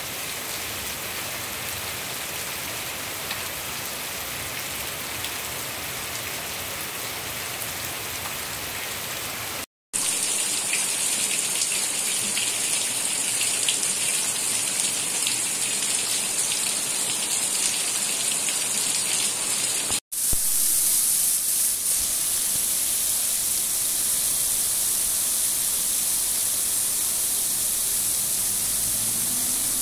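Heavy rain pouring down steadily, in three separate recordings joined by brief cuts about ten and twenty seconds in. The later two are louder and hissier than the first.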